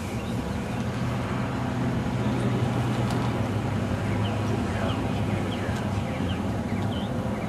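Steady low rumble of road traffic, with small birds chirping faintly now and then, more often in the second half.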